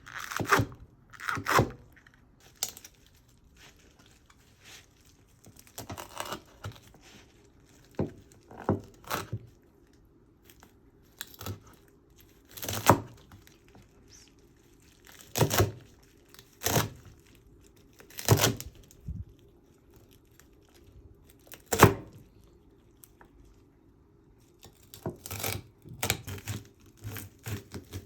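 About a dozen short, irregular handling noises from food being prepared or handled, spaced unevenly over a steady low hum.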